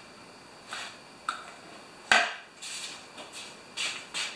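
Handling and workshop movement noises: a few short scuffs and clinks, with one sharp metallic clink about two seconds in. The mower engine is not running.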